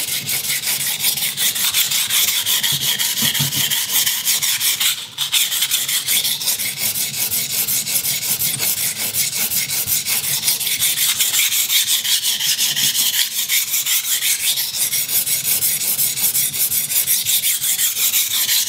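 Soft-steel Ikea kitchen knife ground on a cheap, soft 320-grit water stone: fast, even back-and-forth sharpening strokes, a steady scraping rasp, with a brief break about five seconds in. It is coarse work to reset a badly blunted edge, and the soft abrasive is cutting more slowly than expected.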